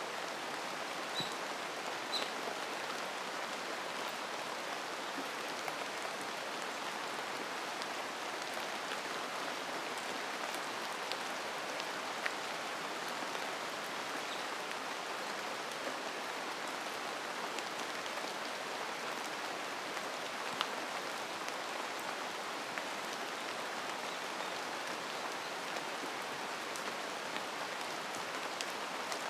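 Steady rain falling in a forest: an even hiss of rainfall with scattered sharp ticks of single drops striking close by.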